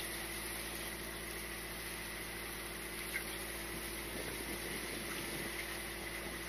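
Boat engine running steadily at idle, a constant low hum, with faint water sounds.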